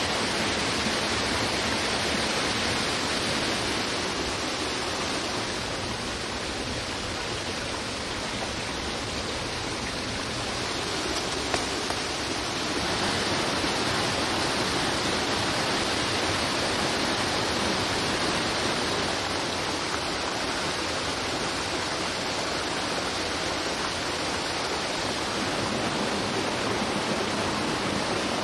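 Steady rush of a forest stream running over rocks, with one short knock just before halfway.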